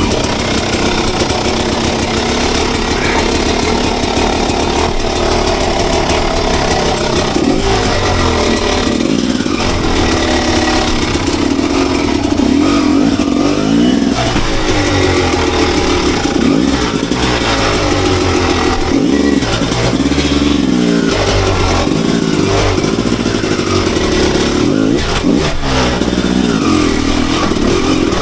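Enduro motorcycle engine running under load, its revs rising and falling again and again.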